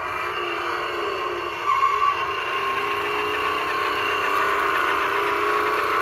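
Electronic engine sound effect from a Road Rippers Lake Lurker toy monster truck, revving and then running steadily, played through the toy's small built-in speaker so it sounds thin, with no deep bass.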